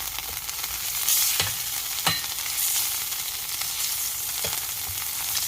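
Butter sizzling as it melts in a hot pan, a steady hiss, with a few light knocks, two of them between one and two seconds in.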